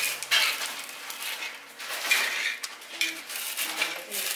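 A thin metal rod scraping and clinking against a metal pan as a sheet of hardened sugar syrup is peeled up from its rim: short, irregular scrapes and clicks a few times a second.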